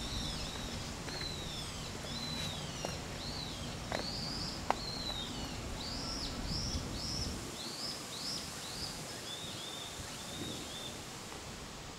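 A songbird calling a long run of repeated, arched, slurred whistled notes, about two a second, the notes lower and weaker near the end. Two sharp clicks about four and five seconds in, the second the loudest moment.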